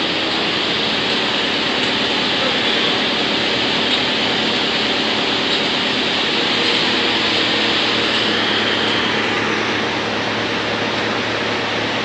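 BX218 drum wood chipper running while chipping wood: a steady, dense mechanical noise with a low hum underneath as chips stream out of the discharge.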